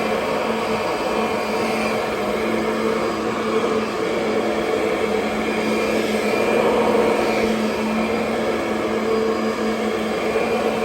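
Kirby Sentria II upright vacuum cleaner running steadily, a constant motor hum under a hiss of airflow, swelling slightly a little past the middle.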